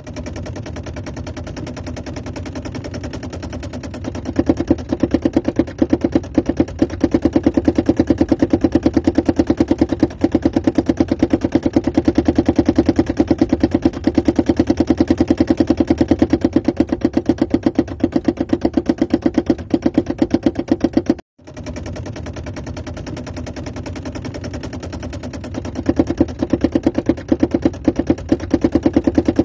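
Rapid, even knocking from under a Mercedes-Benz W124 with the engine running, over a steady low hum. It comes from the driveshaft (cardan shaft) centre support, whose rubber mount has split apart. The knocking grows louder a few seconds in, breaks off briefly about two-thirds through, then builds again.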